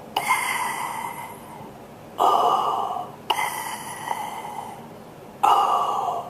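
A man imitating Darth Vader's respirator breathing: slow, rasping breaths in and out through the mouth, about two full in-out cycles, with a faint whistling edge like a scuba regulator.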